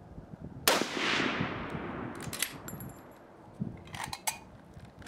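A single rifle shot from a sporterized 1943 Lee Enfield No. 4 Mk I, about a second in, with its echo dying away over roughly two seconds. It is followed by a few short metallic clicks as the bolt is worked.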